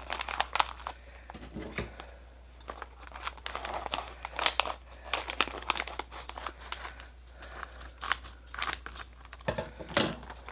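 A plastic snack wrapper being crinkled and opened by hand, in a run of irregular sharp crackles.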